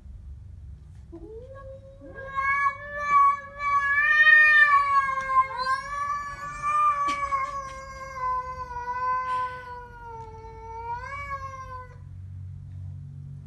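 Siamese cat's long, drawn-out yowl, a growling threat call at a stray cat. It is one unbroken, slightly wavering call that starts about a second in and lasts some ten seconds, sliding up in pitch just before it stops.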